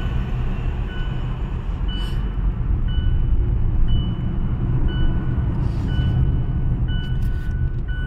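A car driving, heard from inside the cabin: a steady low engine and road rumble. From about a second in, a short, high electronic beep repeats about once a second.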